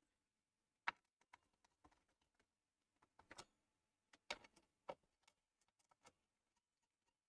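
Faint, scattered clicks and light knocks of hands and a screwdriver working on parts inside a desktop PC case. A sharper click comes about a second in, and a cluster of knocks between about three and five seconds in.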